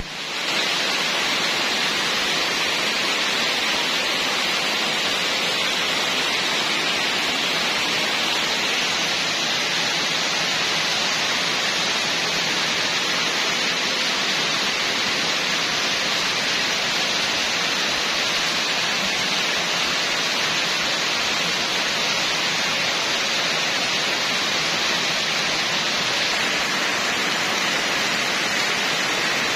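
Heavy downpour: rain pouring steadily onto standing floodwater, a dense unbroken hiss that comes up to full level within the first second.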